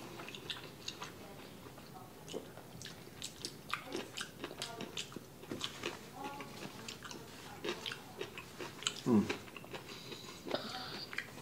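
Close-miked chewing of black bean noodles (jjajangmyeon): a string of short, wet mouth clicks with the mouth full. A brief voice-like sound comes about nine seconds in.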